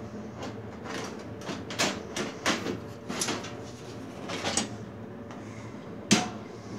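Handling noise around an opened metal server chassis: a run of light clicks and scrapes, then one sharp knock about six seconds in, over a faint steady hum.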